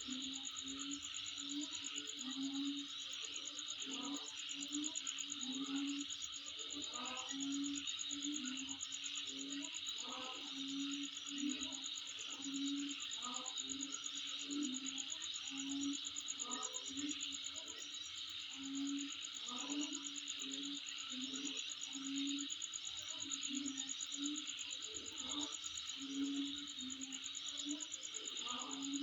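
Insects chirping in a steady, continuous high-pitched trill, with a lower call repeating in short pulses underneath.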